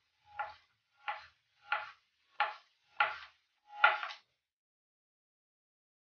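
Kitchen knife slicing through beef smokie sausages onto a cutting board: six even cuts, about one every two thirds of a second.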